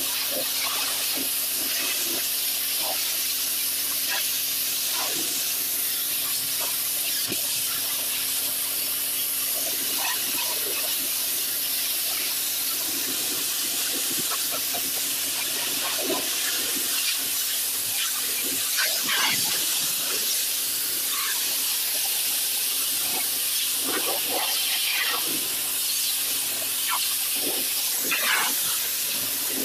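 Pressure washer jet hissing steadily as it blasts across concrete pavers, with irregular splattering as the spray strikes the surface and a steady low hum beneath.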